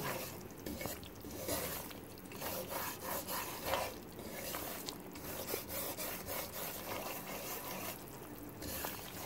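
Wooden spatula scraping and stirring semolina around a karahi of hot ghee: a run of irregular, repeated rasping scrapes over a light sizzle as the semolina roasts.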